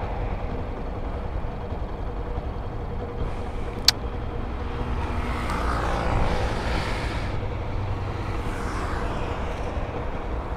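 Road traffic: a steady low engine rumble, with a vehicle passing from about five to seven seconds in. A single sharp click about four seconds in.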